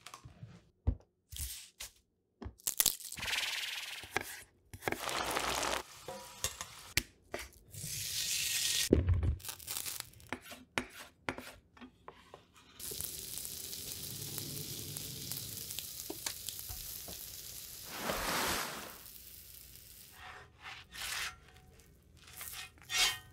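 Kitchen cooking sounds in quick succession: a chef's knife making sharp chops on a wooden cutting board, then a steady sizzle of a quesadilla frying on a flat stovetop griddle for several seconds in the middle, then spatulas clicking and scraping as it is turned near the end.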